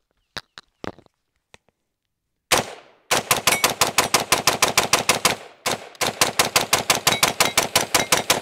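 PSA Sabre 15 AR-15 rifle in 5.56 fired semi-automatically as fast as the trigger can be pulled: a single shot, then a quick string of about six shots a second, a brief pause, and a second string, emptying a 30-round magazine.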